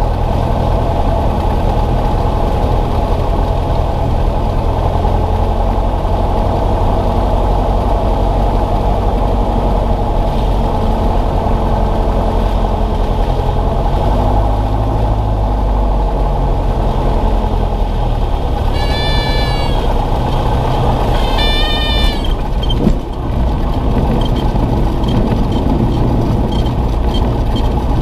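Cessna 172's piston engine and propeller droning steadily at low power, heard from inside the cabin, as the plane comes in to land. About 19 seconds in and again about 22 seconds in, the stall warning horn sounds briefly as the plane flares, and a moment later a single thump marks the wheels touching down.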